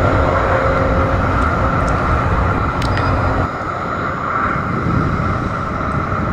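Outdoor field sound of boats under way on open water: a steady low engine rumble under wind and water noise. The low rumble drops away suddenly about three and a half seconds in, leaving a lighter steady hiss.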